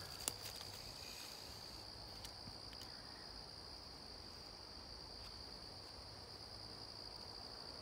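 Steady high-pitched insect chorus, one unbroken drone. There is a single sharp click just after the start.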